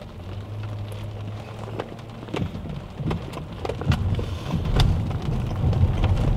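Inside a Tesla Model X cabin: scattered sharp ticks of rain hitting the glass roof over a low hum, with road and tyre rumble growing in the second half as the car gets moving.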